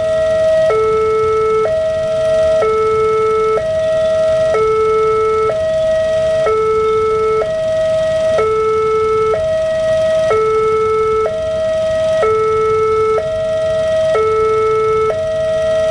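Railway level-crossing electronic alarm sounding a steady two-tone hi-lo wail, switching tone about once a second, while the crossing barrier is down: the warning that a train is approaching.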